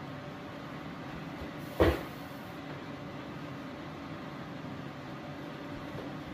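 A heavy thud about two seconds in and another at the very end, feet landing from a jump onto rubber gym flooring, over a steady low room hum.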